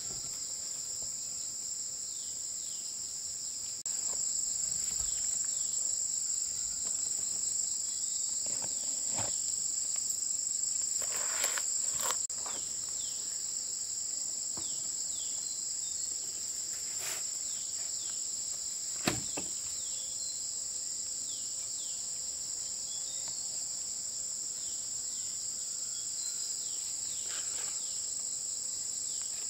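Steady high-pitched insect chorus, crickets or cicadas, that gets louder about four seconds in and drops back about twelve seconds in. A few scattered short knocks sound over it, the sharpest about two thirds of the way through.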